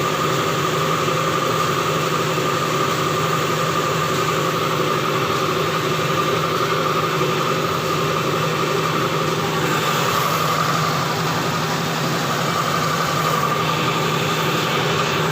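LG electric air compressor running steadily, a constant motor hum with a steady whine and no change in speed.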